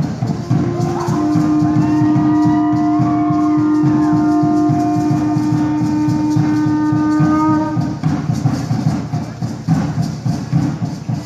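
Aztec dance music with fast, dense drumming and rattling throughout. A long, steady blown note is held from about half a second to about eight seconds in, with higher tones gliding and holding above it.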